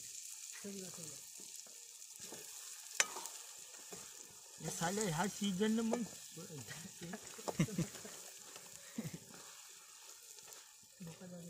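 Small fish sizzling in hot oil in an iron wok over a wood fire, stirred with a metal ladle, with a sharp clink of the ladle about three seconds in. A short vocal sound rises over the sizzle about halfway through.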